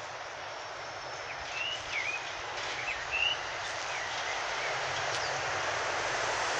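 A few short, high bird chirps between about one and a half and three and a half seconds in, over a steady background noise that grows slightly louder near the end.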